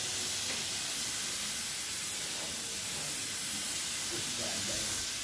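Gravity-feed spray gun spraying paint onto a motorcycle fuel tank: a steady hiss of compressed air atomising the paint.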